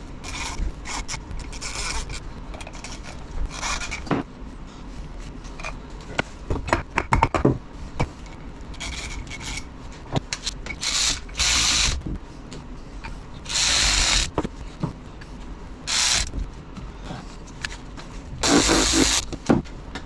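Socket ratchet running cap-head bolts into a transfer case: several rasping bursts of about a second each, the longest in the second half, among clicks and clinks of metal tools and parts.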